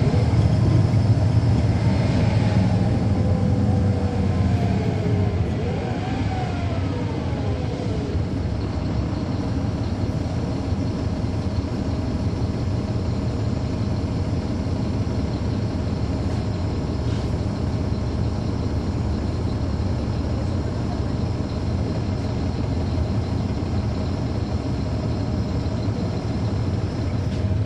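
Interior of a 2009 NABI 40-foot transit bus with a Caterpillar C13 ACERT inline-six diesel and ZF Ecomat automatic transmission. A whine falls in pitch over the first several seconds, then the bus settles into a steady low engine drone, and it grows louder again right at the end.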